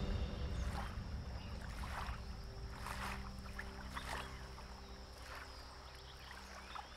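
Soft water splashes, roughly once a second, over low sustained background-music tones that fade out.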